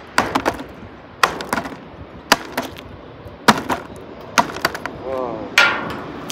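Sharp clicks and knocks in quick groups of two or three, about once a second: small metal finds such as old cartridges being handled and pulled off a fishing magnet.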